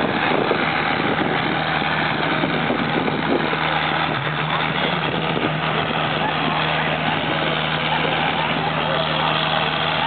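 Farm tractor's diesel engine idling steadily at a constant pitch, with voices in the background.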